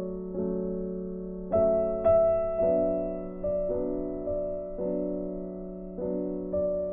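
Background music: slow, soft piano chords, each struck and left to ring and fade, a little louder about a second and a half in.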